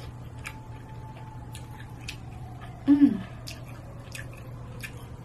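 A person chewing grilled squid stuffed with chives, with irregular wet mouth clicks, and a short falling "mm" hum of enjoyment about three seconds in.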